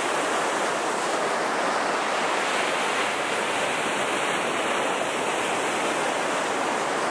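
Rough sea surf breaking steadily over shoreline rocks, a continuous rushing hiss of waves and foam.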